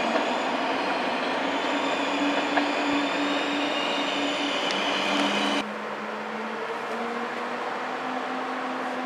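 TGV Atlantique high-speed train rolling slowly into a station: steady wheel-and-rail noise with a humming whine from the power car and a few light clicks. About halfway through the sound cuts abruptly to a quieter steady hum.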